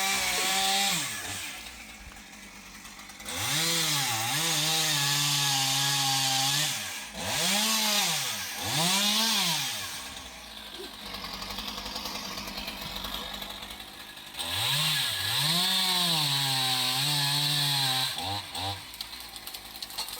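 Chainsaw revved up to full throttle in repeated bursts, two held for about three seconds and several short blips, dropping back to idle in between, as it cuts tree branches.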